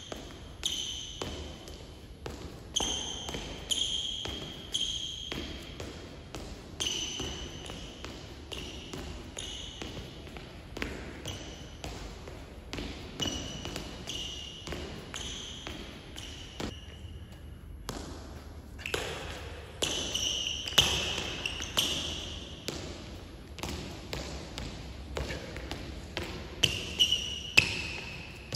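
A footbag being kicked over and over: quick, irregular soft taps of the bag off the shoes and footsteps, mixed with short high squeaks of sneakers on the court floor. There is a brief lull about two-thirds of the way through.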